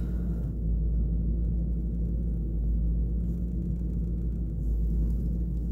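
2001 Ford F-150's V8 engine idling steadily, heard from inside the cab as a low, even hum.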